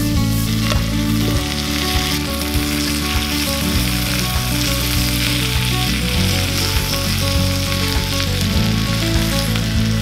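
Meat and cabbage sizzling steadily in a cast-iron skillet over a wood fire, with short clicks and scrapes of metal tongs turning the food in the pan.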